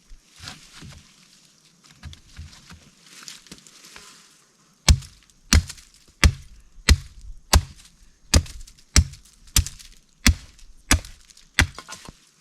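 Wood being chopped or struck: a few seconds of rustling and scraping, then about a dozen steady, sharp blows, roughly three every two seconds.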